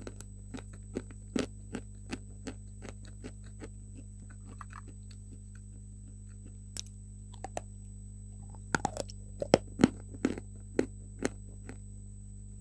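White chalk being bitten and chewed close to the microphone: a run of sharp, irregular crunches, sparse and soft at first, then a louder burst of crunching from about nine seconds in. A steady low hum runs underneath.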